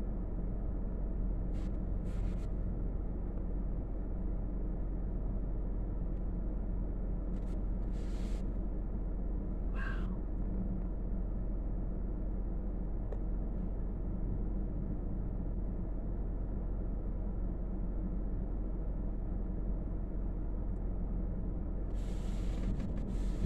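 Steady low rumble and hum with no swells or claps, and a few faint clicks. A short rising chirp comes about ten seconds in.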